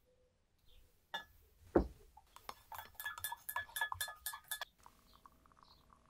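Glassware being handled: a couple of light clicks, a single dull knock, then a quick run of ringing clinks of glass against glass or a utensil for about two seconds.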